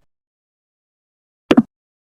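Dead silence, then about a second and a half in a single short double pop, like a plop sound effect.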